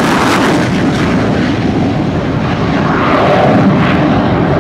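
The twin jet engines of a U.S. Navy F/A-18 Hornet give a loud, steady roar as the jet flies away, with the high hiss dying off about a second in.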